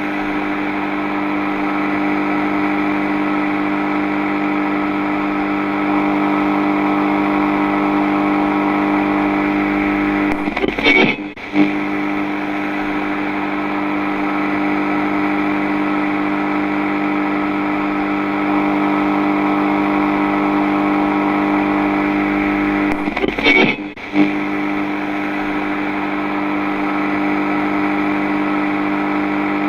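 A loud, steady droning tone made of many layered pitches, with a buzzing, distorted edge. It breaks off with a brief glitchy stutter about eleven seconds in and again about twenty-three seconds in, as if the same drone is looping.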